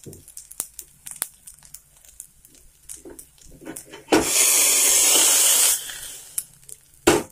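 Hot water poured into a hot steel kadai of roasted vermicelli and flattened rice: a sudden loud burst of hissing and sizzling about four seconds in, lasting under two seconds and dying away over the next. Before it, light tapping and scraping in the pan; two sharp clanks near the end.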